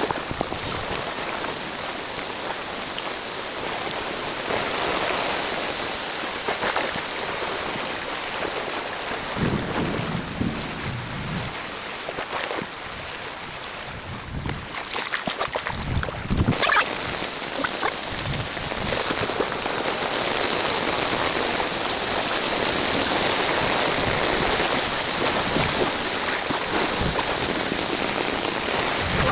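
Heavy rain with a steady hiss, with a few low rumbles about a third of the way in and again past halfway.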